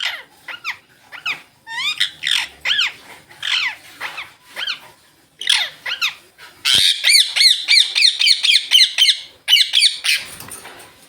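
Indian ringneck parrots (rose-ringed parakeets) calling: a string of separate high squawks that rise and fall in pitch, then, past the middle, a fast run of repeated calls at about four a second, trailing off with a few more near the end.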